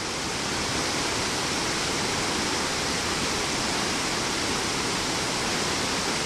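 River water rushing steadily over a rocky cascade, running high and fast.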